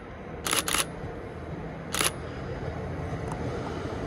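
Low, steady running of a Hitachi Class 800 and 801 Azuma pair departing on diesel power, slowly growing louder as the train draws near; the 801 has only one engine working, so the 800 does most of the work. Sharp clicks cut across it, a quick pair about half a second in and one more about two seconds in.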